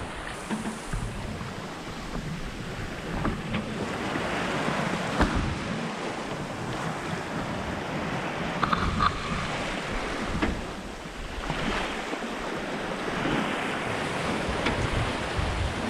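Sea rushing and washing along a sailing yacht's hull under way, with wind on the microphone, swelling and easing.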